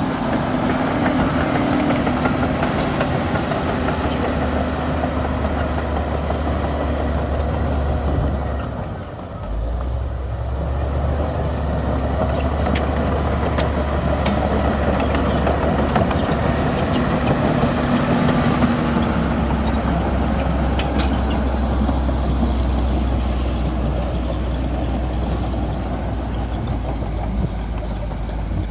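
Komatsu D60P bulldozer's diesel engine running steadily under load. It eases off briefly about nine seconds in, then picks up again.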